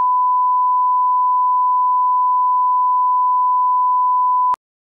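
A steady 1 kHz reference test tone of the kind played over colour bars, one unbroken pitch, cutting off suddenly with a click near the end.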